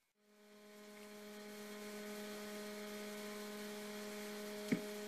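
Steady electrical hum, a low buzzing tone with a stack of overtones, fading in over the first couple of seconds and then holding steady. A faint click comes near the end.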